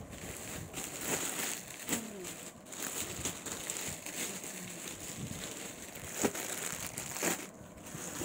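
Clear plastic garment bags crinkling and rustling as a packaged suit is handled and opened, with irregular crackles.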